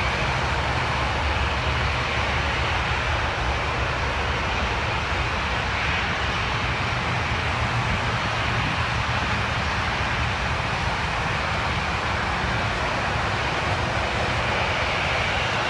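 Steady drone of an Airbus A320's jet engines at taxi power, mixed with steady road traffic passing close by, with no rise in power.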